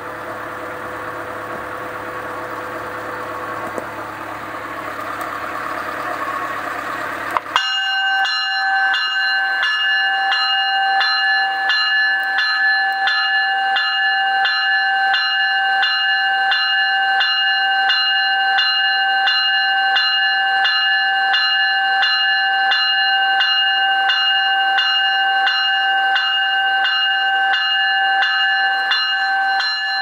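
Graham White E-Bell electronic locomotive bell ringing loud, a clear bell tone struck over and over at about one and a half strokes a second, starting suddenly about seven and a half seconds in. Before it starts there is only a steady hum with a slowly rising hiss.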